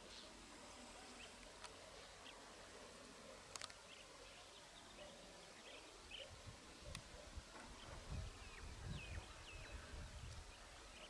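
Faint, scattered bird chirps and short calls, some falling in pitch, over quiet outdoor hiss. A low, uneven rumble swells in the second half.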